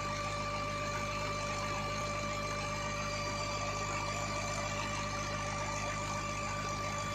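Tractor diesel engine running steadily while driving a PTO-shaft water pump, a constant hum with a steady whine over it.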